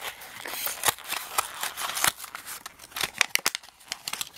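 Hands opening a toy car's blister pack: the stiff clear plastic blister and cardboard backing crackle and click irregularly as they are bent and pulled apart, with a quicker run of clicks about three seconds in.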